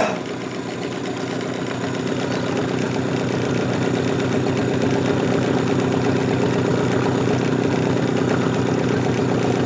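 Boat engine running steadily, growing a little louder over the first few seconds and then holding an even note.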